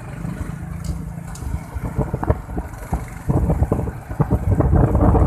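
Wind buffeting the microphone of a phone carried on a moving vehicle, over a steady low road and engine rumble; the buffeting grows louder about three seconds in.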